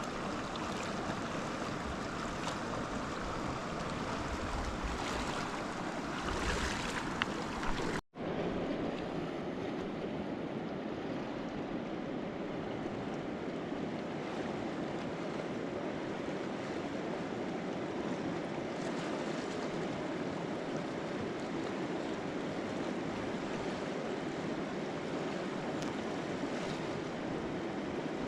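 Rushing river water, a steady noise with no pauses, broken by a momentary cut about eight seconds in.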